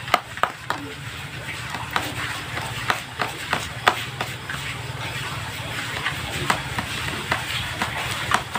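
Irregular scrapes and taps of a small plastic tool mashing crumbly bait mix against the bottom of a plastic tray, over a steady low hum.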